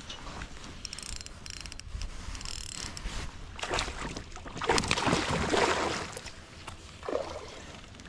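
Kayak paddle strokes sloshing through the water, the loudest swell about four to six seconds in and a smaller one near the end, with a few light clicks and rattles early on.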